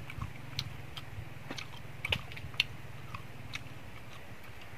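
Irregular small clicks and crackles of fried fish being picked apart with the fingers and eaten, the loudest about two seconds in, over a steady low hum.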